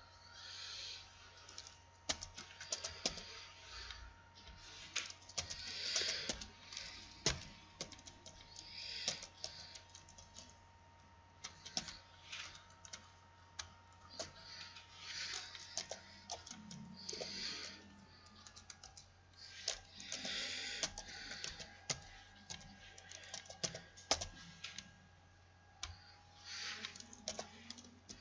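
Typing on a computer keyboard in short bursts of keystrokes with brief pauses between them. Under the typing are a steady low electrical hum and a thin steady tone that drops slightly in pitch about two-thirds of the way through.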